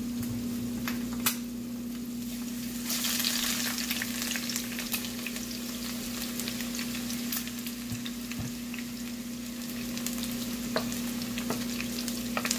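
Green beans and sliced red onion sizzling in hot oil in a nonstick frying pan, the sizzle growing louder about three seconds in, with scattered light clicks. A steady low hum runs underneath.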